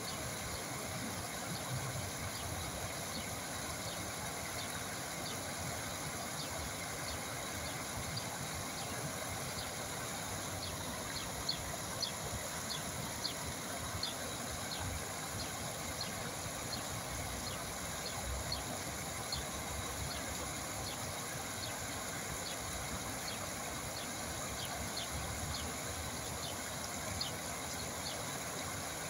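Water flowing steadily, a continuous even rush. From about ten seconds in, many faint short high ticks or chirps sound over it.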